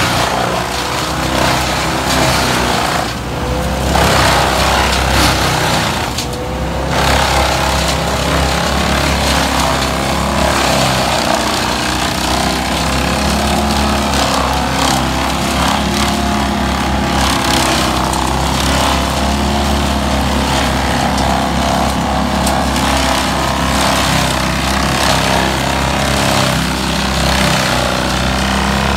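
Engines of a Vermeer BC1500 brush chipper and a Vermeer stand-on tracked mini skid steer running steadily and loudly, with the chipper taking in spruce branches.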